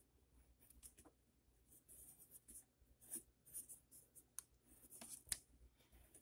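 Faint scratching of a graphite pencil on paper in short, separate strokes, with a few sharper ticks of the lead on the page, as gill slits are sketched in.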